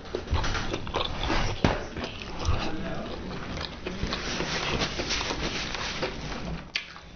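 Close-miked chewing and mouth sounds of someone eating: many small, irregular wet clicks and smacks, quieting briefly near the end.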